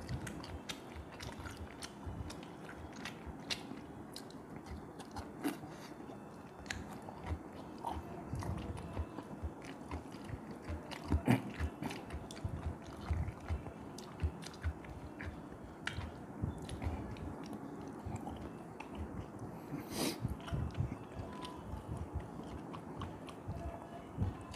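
Close-up chewing and wet mouth sounds of a man eating fish head soup by hand, with irregular soft smacks and occasional sharp clicks; the sharpest clicks come about halfway through and again near the end.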